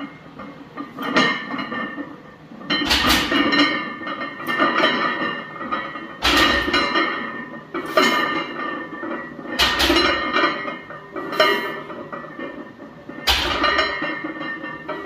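A 315 lb loaded barbell clanking against the steel pins of a power rack through about four rack-pull reps: a metallic clank as the bar leaves the pins, then a heavier thud as it is set back down, each with the iron plates ringing and rattling. The reps come roughly every three and a half seconds.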